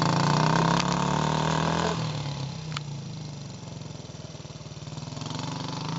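Small engine of a youth ATV running as it drives across grass, loud for the first couple of seconds, then quieter and steady as the quad moves away.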